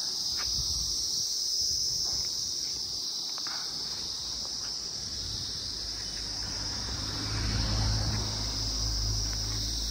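Steady, high-pitched insect chorus from the forested hillside. A low rumble comes in about halfway and grows louder near the end.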